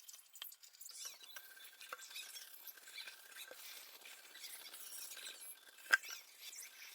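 Faint scratchy rubbing as an epoxy-resin patch on a glass table top is polished by hand with toothpaste, with small ticks throughout and one sharp glassy clink about six seconds in.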